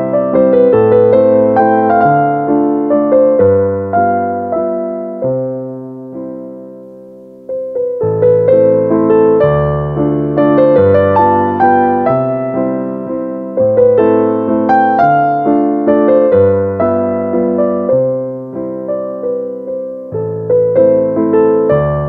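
Slow background piano music of single struck notes in a gentle melody. It dies away around six seconds in and starts again about seven and a half seconds in.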